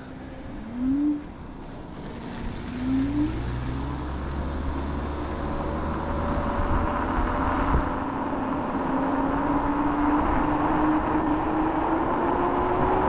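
Kaabo Wolf King GT electric scooter's dual hub motors whining under acceleration. Two short rising spurts come in the first three seconds, then the whine climbs steadily in pitch as the scooter speeds up. Wind rush on the chest-mounted microphone grows louder with speed.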